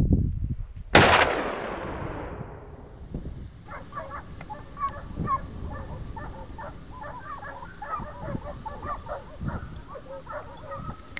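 A single gunshot about a second in, echoing across the valley as it dies away over a couple of seconds. After it come many short, scattered barks of hunting dogs baying in the distance.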